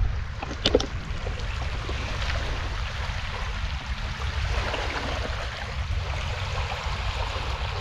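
River water washing and lapping against the shore, with a steady low rumble underneath and a short click under a second in.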